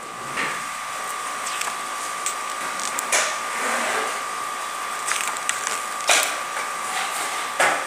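Glossy magazine pages being turned and handled, with a papery swish or rustle several times. A steady high-pitched hum runs underneath.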